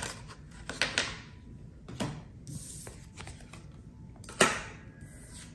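Tarot cards being gathered up and handled on a tabletop: a scatter of light clicks and taps, with a louder one about four and a half seconds in.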